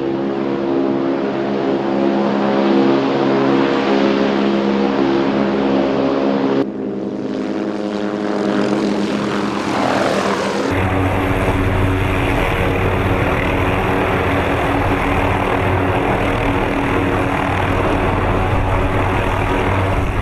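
MD 530F light helicopter running, a steady mix of turbine and rotor sound. The sound changes abruptly about 7 seconds in and again near 11 seconds. Around 9 seconds a tone falls in pitch as it passes, and after that a heavier low beating of the rotors takes over.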